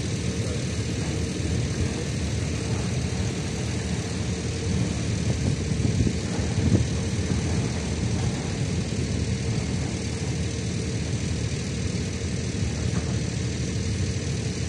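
Heavy construction machinery engine running steadily: a low drone with a constant hum, briefly louder about halfway through.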